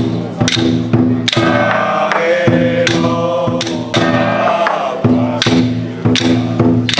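Chinese temple ritual music: chanting and sustained instrument tones over percussion strikes that recur roughly every half second to a second.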